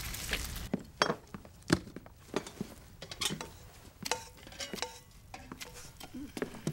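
Plates, a bowl and cutlery clinking and clattering on a wooden table, a string of separate knocks and clinks, a few of them ringing briefly.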